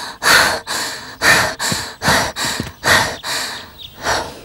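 A cartoon pig character panting hard and out of breath after running, with quick, noisy breaths about twice a second.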